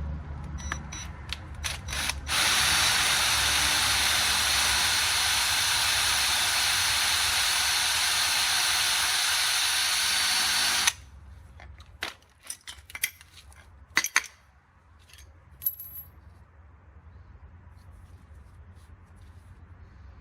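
A loud steady hiss starts about two seconds in, runs for about eight seconds and cuts off suddenly, followed by scattered sharp metallic clinks and taps of tools being handled.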